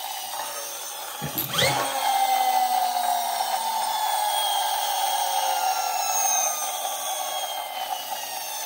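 Friction flywheel motor of a RACE-X toy car whirring, with the buzz of a small plastic noisemaker on the flywheel that imitates engine noise. About a second and a half in, a push revs it up with a sharp rising whine, then it keeps spinning with a slowly falling pitch.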